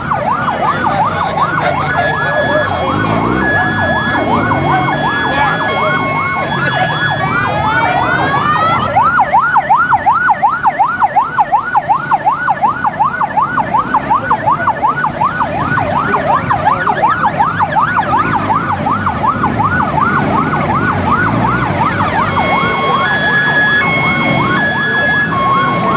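An electronic siren yelping, its pitch swinging up and down about four times a second, switching briefly to quick rising sweeps about eight seconds in. A second electronic tone beeps in a repeating pattern over it for much of the time, with crowd noise beneath.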